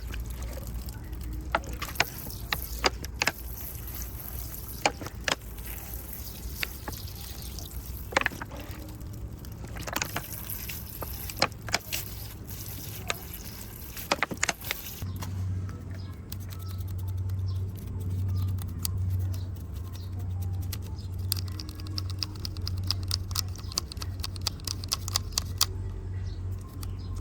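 Small sharp clicks and taps from hands and cleaning tools working on a die-cast toy motorcycle, with a steady low hum coming in about halfway through.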